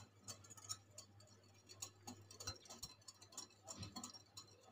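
Wire whisk beating curd in a glass bowl: faint, quick, irregular ticks as the wires strike the glass.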